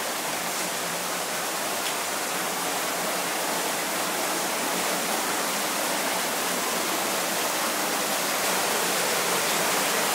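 Water dripping and trickling steadily down the wet, moss-covered canyon walls and falling onto the pebble floor, a constant rain-like patter.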